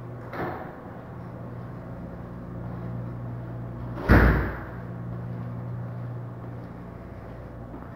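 A door slams shut with a loud bang about four seconds in, ringing briefly in a tiled lobby, after a lighter knock near the start. A steady low hum runs underneath.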